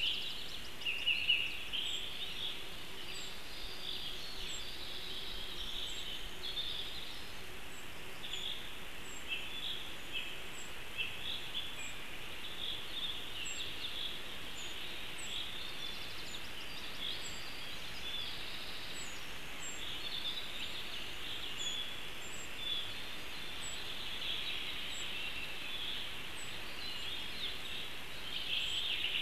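Birds chirping and calling continuously in high, busy phrases, with a thin, very high tick repeating every second or two and a brief louder burst of calls about a second in.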